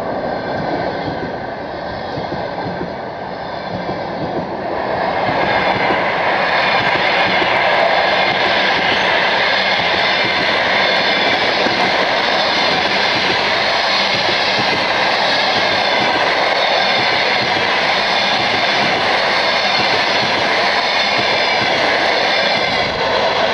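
Passenger train coaches rolling past at speed: a steady rush and rumble of wheels on rails. It gets louder about five seconds in and then holds even.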